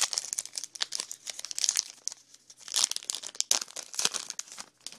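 A baseball card pack wrapper being torn open and crinkled in the hands, an irregular run of sharp crackles.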